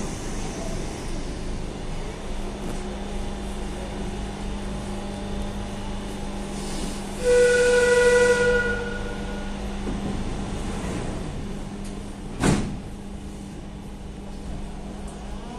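Madrid Metro Serie 5500 train running, a steady electric hum over rail noise. About seven seconds in, a metro train whistle sounds once, a single held tone lasting about a second and a half. About twelve and a half seconds in comes a short sharp knock.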